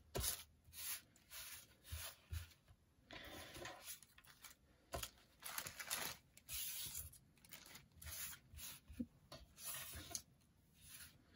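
Small paper cutouts and a clear plastic bag rustling as the pieces are gathered up by hand and slipped into the bag, in short, broken rustles.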